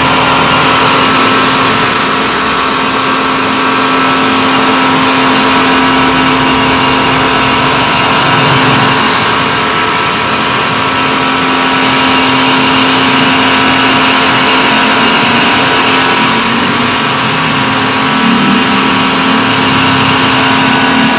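Pressure washer running steadily, a constant motor hum under the hiss of its water jet spraying across an air-conditioner's aluminium coil fins.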